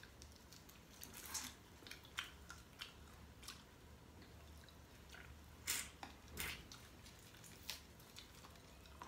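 Faint eating sounds: scattered soft clicks and crackles of shellfish shells being pulled apart by hand, with chewing, a little louder about two-thirds of the way through, over a low steady hum.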